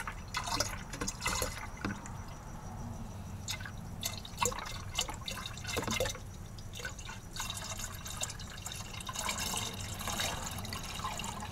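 Used engine coolant being poured from a plastic bottle into the neck of a plastic jug: a thin stream splashing and dripping unevenly, with scattered small clicks.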